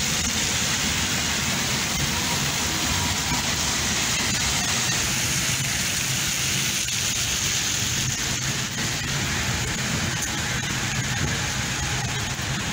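Rain and city traffic on a soaked road: a steady hiss of rain and tyres on wet asphalt over the low rumble of car engines.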